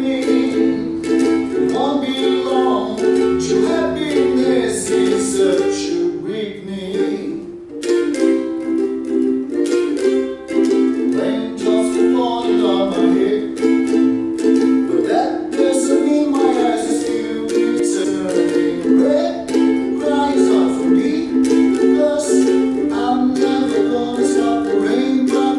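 Ukulele strummed in an easy ballad rhythm, with a man's voice singing along over the chords. The strumming briefly drops away about seven seconds in, then picks up again.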